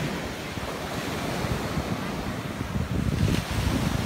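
Ocean surf washing onto the beach, with wind buffeting the microphone in a rough low rumble; the noise swells a little louder about three seconds in.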